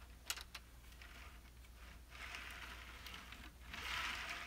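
A few small clicks, then a soft rolling hiss in two pushes, the second louder, as a model railroad car's wheels are run along code 83 flex track by hand to test that the newly laid rails are in gauge.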